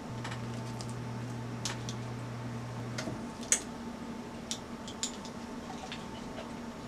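Light clicks and clinks of kitchen utensils against a glass mixing bowl, scattered and faint, the sharpest about three and a half seconds in. A low steady hum runs under the first three seconds and then stops.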